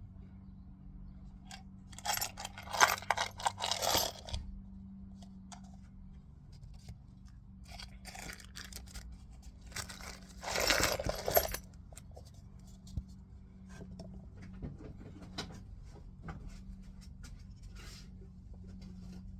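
Loose metal screws rattling and clinking in a tub, in two busy spells of rummaging or tipping with scattered single clinks between, over a steady low hum.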